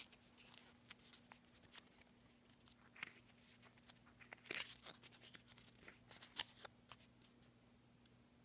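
Faint crinkling of a small folded paper raffle ticket being unfolded between the fingers: a run of short crackles, loudest about three, four and a half and six seconds in.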